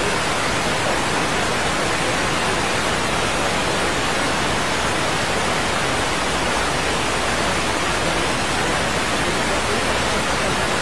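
Steady hiss of static noise at an even level, spread over low and high pitches alike, with no change throughout.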